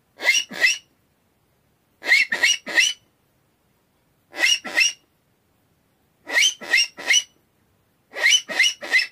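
Mouth-blown aluminium rock cavy (mocó) call, a game call built on the seriema-call pattern, imitating the rock cavy's call. It gives five quick bursts of two or three short, rising, raspy squeaks each, about two seconds apart.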